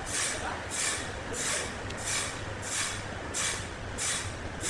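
Regular hissing or scraping strokes, about three every two seconds, over a faint low hum.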